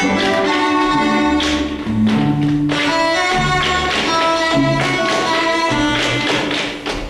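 Several tap dancers' metal-plated tap shoes striking a stage floor in rhythm, over recorded string quartet music playing held notes.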